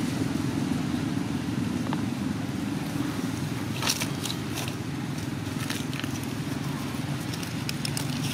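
Steady low rumble of a running vehicle engine, with a few short crackles about four seconds in and again near the end.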